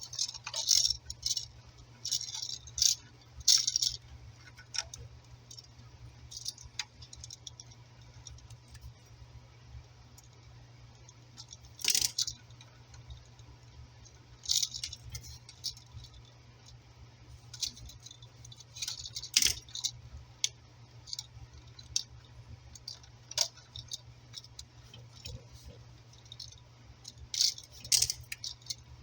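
Scattered metallic clicks and rattles from handling a 120 V wall receptacle, its wires and a screwdriver while the ground wire is hooked and tightened under a screw terminal, coming in short clusters with pauses between.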